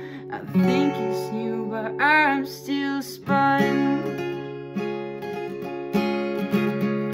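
Acoustic guitar with a capo being strummed and picked, with a young male voice singing along.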